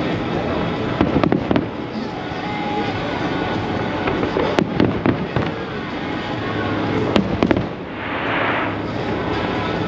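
Fireworks show: aerial shells exploding in a string of sharp bangs, several in quick succession, with a short hiss near the end.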